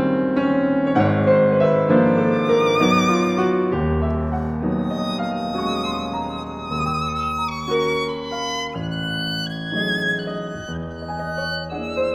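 Violin and piano playing a violin sonata. After a couple of seconds of piano notes, the violin comes in on high held notes with a wide vibrato over sustained piano chords.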